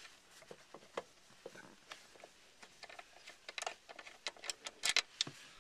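Ratchet wrench clicking in short, irregular runs as a seat-rail bolt is backed out of the floor, with light metal clinks; the clicks grow quicker and louder toward the end.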